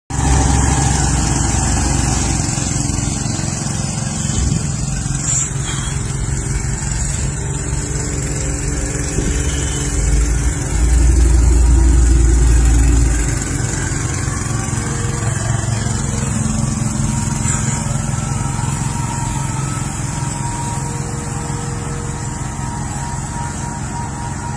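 A car running steadily, engine and road noise without any speech, with a deeper low rumble swelling for a few seconds near the middle.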